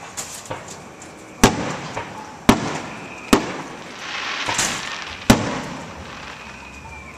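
Aerial firework shells bursting overhead: four sharp bangs, roughly a second apart, each followed by a rolling echo, with a stretch of hiss between the third and fourth.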